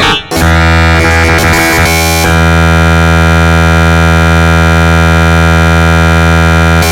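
Loud, dense 'dark MIDI' synthesizer arrangement of an HTC ringtone: after a short flurry of massed notes, an enormous wall-of-sound chord of many simultaneous notes is held from about two seconds in.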